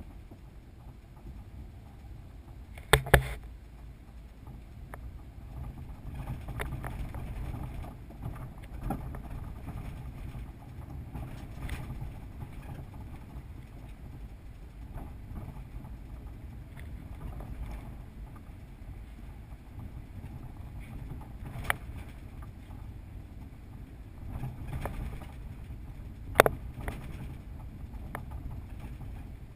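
Car driving along a city street, heard from inside the car: a steady low rumble of engine and road noise, with a few sharp knocks about three seconds in and twice near the end.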